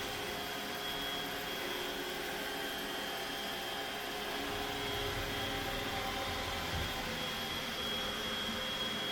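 Roomba robot vacuum running: a steady whir with a constant high motor whine.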